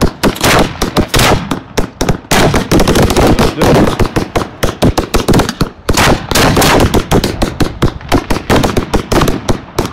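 Fireworks cake (compact) firing at close range: a rapid, unbroken volley of sharp launch shots, several a second.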